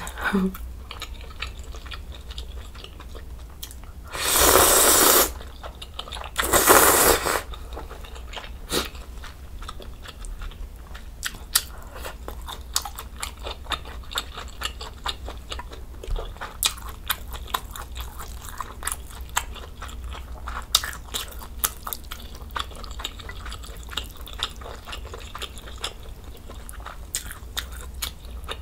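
Close-miked eating of ramen noodles in budae-jjigae stew: wet chewing and mouth sounds with many small clicks. Two loud breathy rushing sounds, about a second each, come about four and six and a half seconds in.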